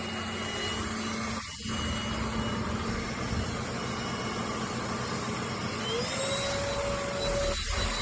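Tower VL25 corded stick vacuum cleaner running with a steady motor whine and hum; about six seconds in the whine glides up to a higher pitch as the motor speeds up, with two brief dips in the sound, one early and one near the end.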